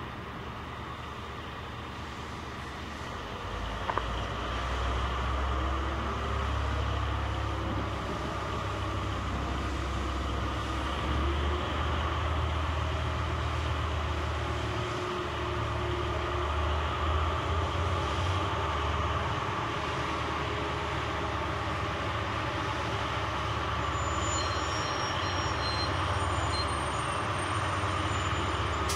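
Diesel-electric locomotives of a long freight train growling loudly as they haul it at a crawl, one of the units having failed. A steady heavy low rumble that grows louder about four seconds in, with one short click.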